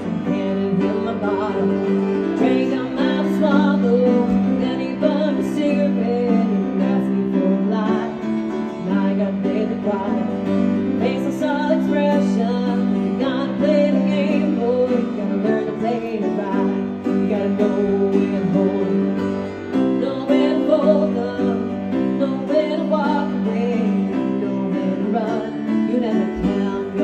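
Live piano playing with a woman singing over it through a microphone: a slow, even song with held chords.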